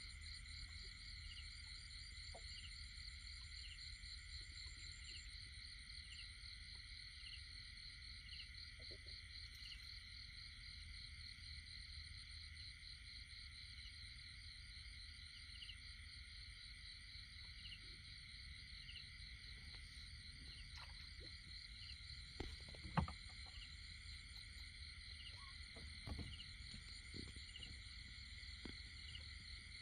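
A steady, high-pitched chorus of night insects, with a short chirp repeating about every second and a bit. A few knocks and rustles of someone moving through brush, the loudest about 23 seconds in and another about 26 seconds in.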